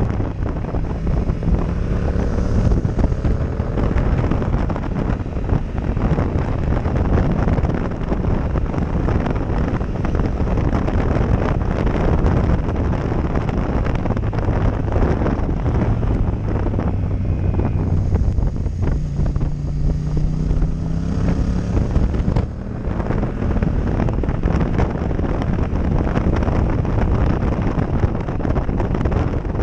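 Heavy wind buffeting on a helmet-mounted action-camera microphone at road speed, with a motorcycle engine running underneath, its note rising and falling with the throttle and climbing for a few seconds about two thirds of the way through.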